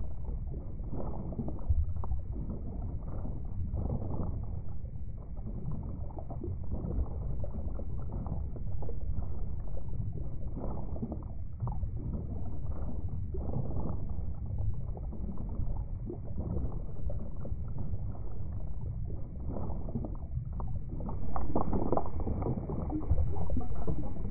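Underwater recording of water: a continuous, muffled low rumble with nothing high-pitched, swelling louder near the end.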